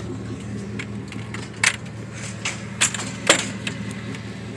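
A pickup truck's engine idling steadily, with several sharp clicks and knocks of things being handled, the loudest about three seconds in.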